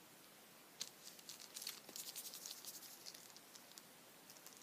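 Faint quick ticking and pattering of tiny candy sprinkles and rock-candy bits handled in a plastic tray. It comes as a single click, then a dense run of ticks about two seconds in, thinning out afterwards.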